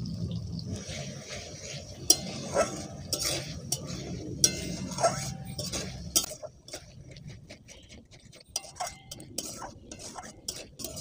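Metal spatula stirring and scraping a thick tomato-and-spice masala in a large metal kadai, with irregular clinks and knocks of the spatula against the pan. The gravy is being cooked down after the tomato puree goes in.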